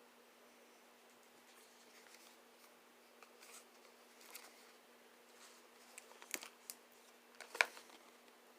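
Faint handling of a folding pocket knife: soft rustles and light ticks, then a few sharp clicks of the knife's metal parts about six and seven and a half seconds in.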